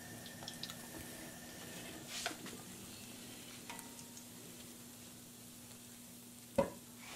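Faint sizzling and bubbling of fish fillets frying in oil in a cast iron skillet, with light clicks of a metal slotted spatula against the pan as the pieces are scooped out. A sharp knock comes near the end.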